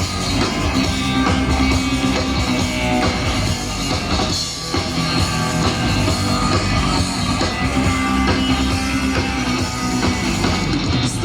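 Live rock band playing an instrumental passage: drum kit, electric guitar and bass, without vocals.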